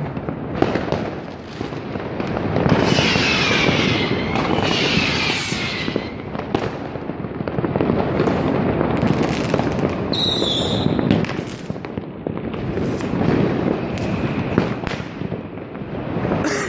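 New Year's Eve fireworks: a dense, unbroken crackle of firecrackers and rocket bangs. Falling whistles sound about three to five seconds in, and a shrill high whistle about ten seconds in.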